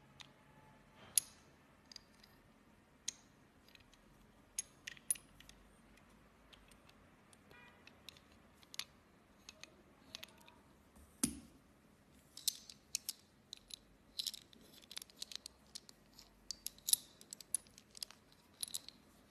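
Small stainless steel swivel pulley blocks handled and turned over, metal clinking and clicking against metal in scattered sharp ticks. One heavier knock comes about halfway through, and the clinks come thicker in the second half.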